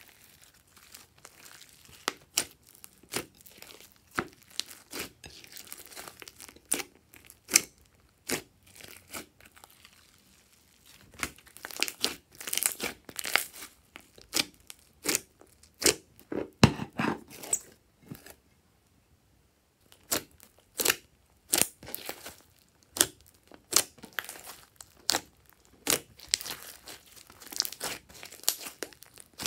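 Glossy slime mixed with floam and clay being squeezed, stretched and pressed by hand, giving an irregular run of sharp pops and crackles, with a short pause about two-thirds of the way through.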